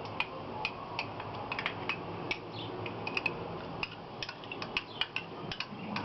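A spoon clinking and tapping against a mixing bowl in quick, irregular light strikes while fresh cream is added to the wet ingredients.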